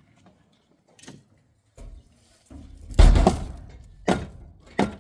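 A series of knocks and thuds, the loudest about three seconds in, followed by a rattling tail that fades over about a second.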